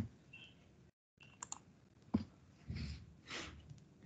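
Faint, scattered computer keyboard and mouse clicks as a search is typed and an app is opened, with two short soft swishes about three seconds in.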